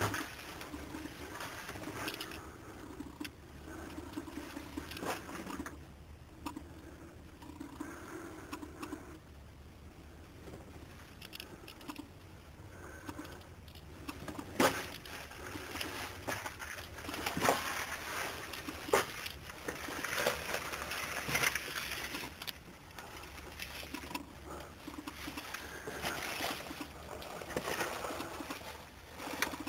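Irregular clicks, knocks and scuffing noises, with some splashy, watery sounds: footsteps and handling noise of someone moving through a mine tunnel.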